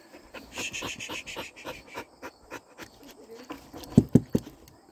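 A dog with porcupine quills in its muzzle panting in quick, short breaths, with three heavy thumps close together about four seconds in.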